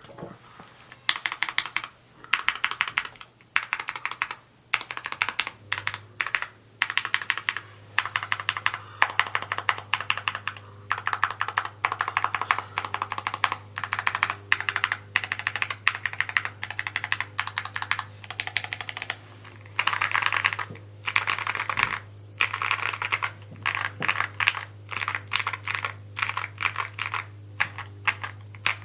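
Evo80 mechanical keyboard being typed on fast, rapid key clicks in runs of a second or two broken by short pauses.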